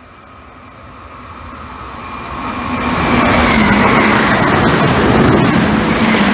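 Electric multiple unit train (Trenitalia ETR521 'Rock' double-decker) approaching and passing, growing louder over the first three seconds and then staying loud. A steady electric whine sits over the wheel-on-rail rumble, its pitch dropping slightly as the train goes by, with wheel clicks over rail joints.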